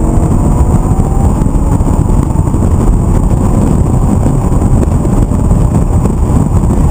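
Lamborghini Gallardo LP 560-4's V10 engine running hard, heard loud inside the cabin together with heavy road and wind noise. The engine note rises over the first couple of seconds.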